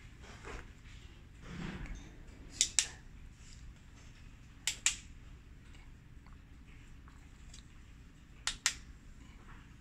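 Three pairs of short, sharp clicks, each pair a fraction of a second apart, coming a couple of seconds after one another over a low room hum.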